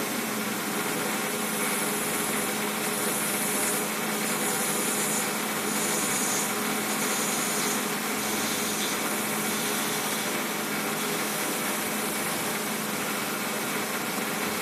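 Small benchtop metal lathe running steadily with a motor hum while a parting tool cuts a pen blank; a high hiss from the cut comes and goes in the first half.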